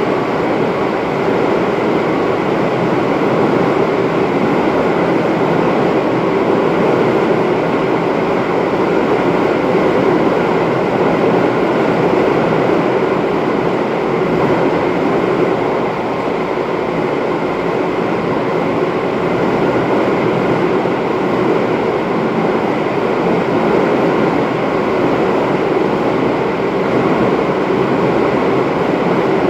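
Izu Kyuko 2100 series electric train running at a steady speed: a continuous rumble of wheels on rail with a faint steady whine from its Toyo Denki drive equipment.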